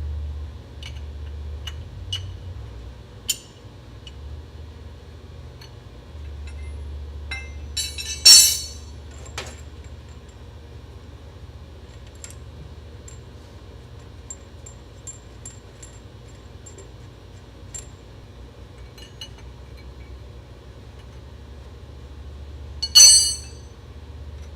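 Metal hand tools and fittings clinking and tapping while a fuel line is connected, with two short, louder metallic clatters, one about 8 seconds in and one near the end, over a steady low rumble.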